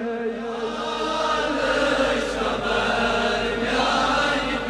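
Devotional chanting, here a soft blend of overlapping voices between the clearer sung lines, over a faint low hum.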